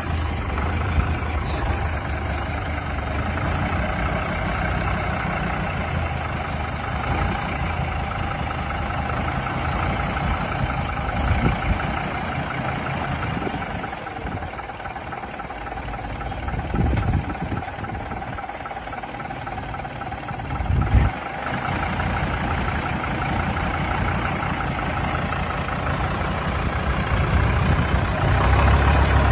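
Vintage bus engine idling steadily, with a short louder knock about two-thirds of the way through.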